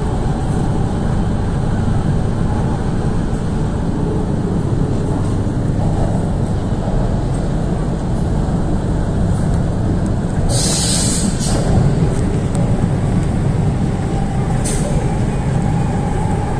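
MTR K-train (Hyundai Rotem electric multiple unit) running, heard from inside the car as a steady low rumble of wheels on rails. About ten seconds in, a loud hiss lasts about a second, and a shorter hiss follows near the end.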